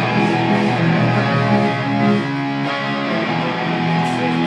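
Live rock band playing: electric guitars strumming held chords that change every second or so, over a drum kit.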